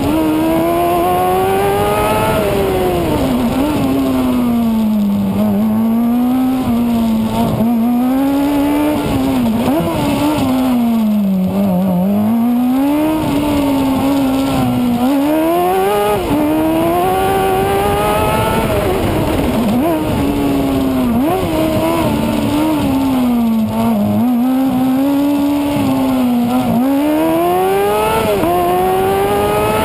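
Formula SAE race car engine at lap speed, heard from the cockpit. Its pitch climbs and falls repeatedly with the throttle through straights and corners, with several sudden dips.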